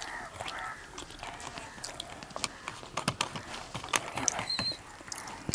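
Close-up eating sounds: fingers working rice on a plate, with chewing, lip smacks and scattered small clicks.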